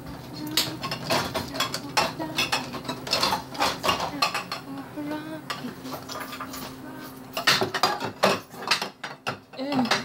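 Dishes and cutlery clinking and clattering as a dishwasher is unloaded and its contents are put away in cabinets: a steady run of sharp clinks, with a burst of louder clatters about three quarters of the way through.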